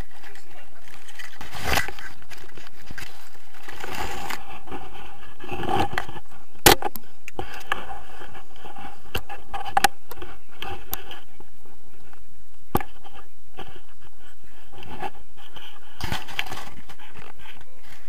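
Rustling and scraping of the action camera brushing through grass and leaves, with a few sharp knocks as it is handled.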